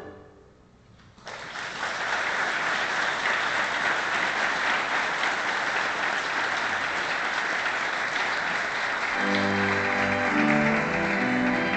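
Audience applause that begins about a second in, after a moment of near quiet, and keeps going steadily. Near the end a piano starts playing held chords beneath the clapping.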